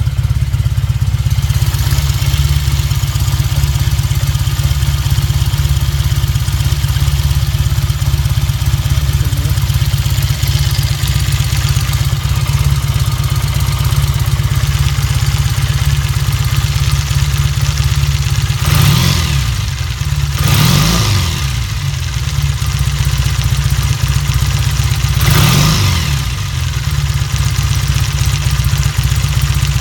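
Triumph 5TA Speed Twin's 490 cc parallel-twin engine idling steadily. Its speed rises and falls briefly about three times in the second half.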